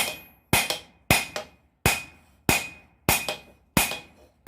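Blacksmith's hand hammer striking hot steel on an anvil while forging a blade blank. About eight steady blows, roughly one every two-thirds of a second, each with a short metallic ring and sometimes a lighter bounce tap.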